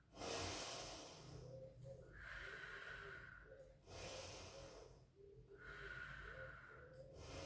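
A woman's slow, quiet breathing while holding a stretch: three audible breaths, about one every three and a half seconds.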